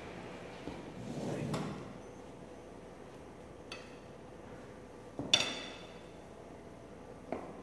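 Serving utensil knocking and clinking against a wok and plate while glass noodles are dished up. It makes a few light knocks and one loud, ringing clink about five seconds in.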